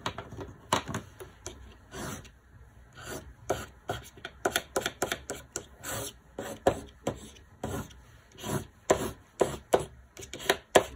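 Watercolor crayon scratching across watercolor paper in quick short strokes, a few a second, as grass blades are drawn.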